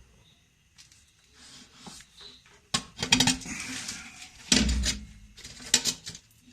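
Clinking and clattering of hand tools or small parts being handled, in a few short bursts starting a little under three seconds in, the loudest around the middle.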